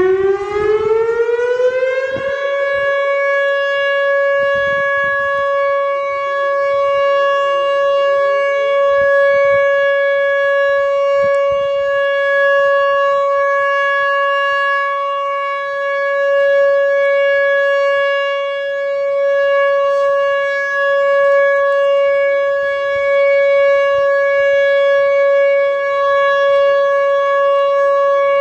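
Whelen WPS 2904 electronic warning siren sounding its steady Alert tone for a routine test: it winds up in pitch over the first couple of seconds, then holds one loud, steady note that swells a little in loudness. Faint lower gliding tones sound beneath it.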